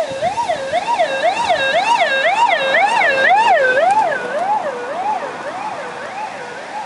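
Vehicle siren on a fast yelp, its pitch sweeping up and down about two and a half times a second, from a rally safety car running the stage ahead of the competitors. It is loud for the first few seconds, then fades away.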